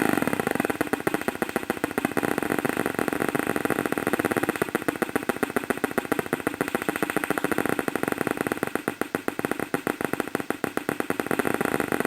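Homemade six-oscillator drone machine making a fast, even pulsing buzz: an electronic tone chopped on and off many times a second.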